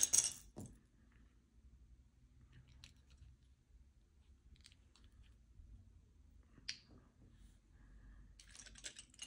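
LEGO plastic pieces clicking and rattling as they are handled: a burst of clatter at the start, a few faint clicks through the middle, one sharper click about two-thirds of the way in, and more rattling near the end.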